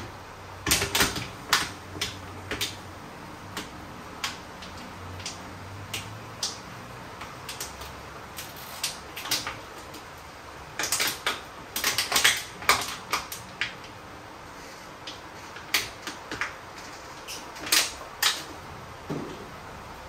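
Irregular clicks and light knocks of plastic storage containers, lids and packages being handled and set down. The clicks bunch up about a second in, again around the middle, and once more near the end.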